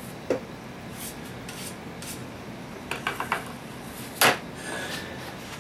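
Sandpaper rubbing steadily over the wooden case of a Gilbert clock by hand, taking off excess dried glue. A few knocks and clacks of the work come through, the loudest a little past four seconds in.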